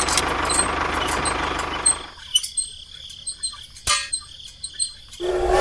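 A small motor running steadily, which cuts off about two seconds in. A few faint clicks and high chirps follow, and music starts near the end.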